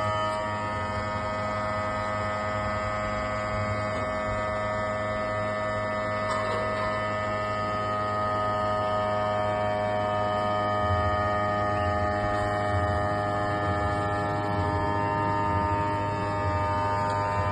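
Tata Tigor EV giving off a steady electric hum made of many tones at once, which sink slowly and slightly in pitch, over a low throbbing drone.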